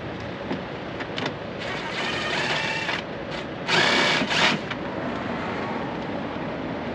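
A 13/32 socket tool backing out the screws on a Kenworth T680's engine air filter housing, with two short, louder bursts of tool noise about four seconds in, over a steady background din.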